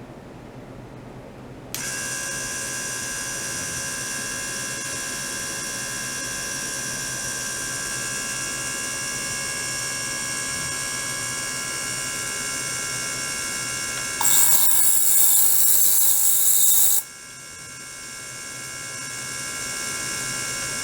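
Ultrasonic water tank with a small circulating pump switching on about two seconds in and running with a steady electric buzz of many high fixed tones. A louder hiss joins for about three seconds near the end.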